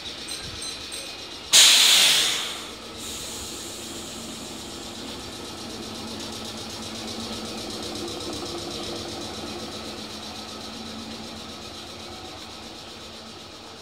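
Red Meitetsu electric train venting compressed air: a sudden loud hiss about a second and a half in, fading over about a second, followed by the steady hum of the standing train's equipment.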